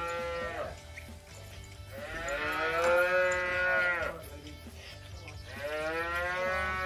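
Dairy calves mooing in long, drawn-out calls. One call trails off at the very start, a long one comes about two seconds in and lasts about two seconds, and another begins near the end.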